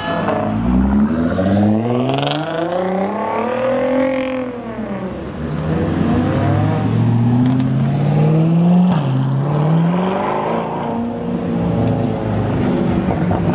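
Cars accelerating away with engines revving. The engine note climbs for several seconds and falls back, then climbs again with a sudden drop partway through, like a gear change.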